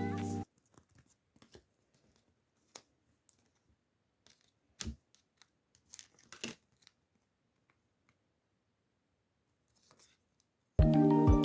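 Packaging being handled and opened close to the microphone: scattered small clicks and crinkles, the sharpest around the middle. Background music cuts out just after the start and comes back near the end.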